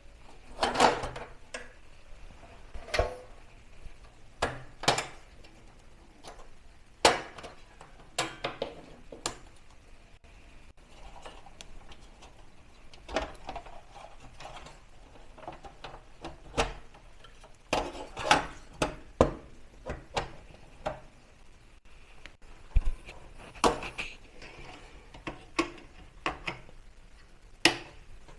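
Irregular clicks, knocks and clinks of hands working on an HP ProDesk 600 G4 small-form-factor PC, handling its case and parts while DDR4 memory sticks are fitted. The sharper knocks come singly or in small clusters, a second or more apart.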